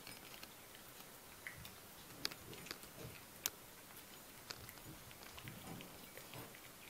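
Maltese puppy chewing dry kibble from her bowl: quiet, irregular crunching with scattered sharp clicks.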